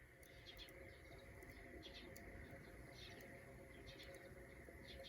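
Faint chirping of small birds: short, high chirps repeated at irregular intervals throughout.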